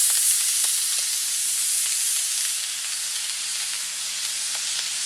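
18mm Aerotech D2.3 long-burn composite rocket motor burning with a loud, steady hiss that slowly fades.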